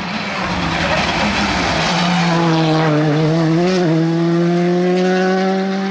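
Hyundai rally car driving past at speed. First comes a loud rush of tyre and road noise, then the engine's note, held at high revs. It dips briefly about four seconds in, then climbs slowly as the car pulls away.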